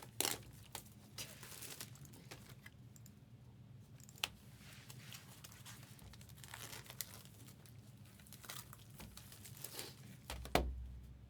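Trading-card packaging being torn open and crinkled, with scattered handling clicks and a dull thump near the end.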